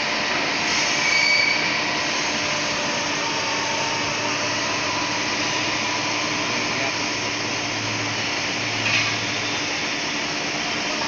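Steady running noise of machine-shop machinery, a constant whirring hiss over a low hum, with a brief louder swell about a second in and a short sharper sound near the end.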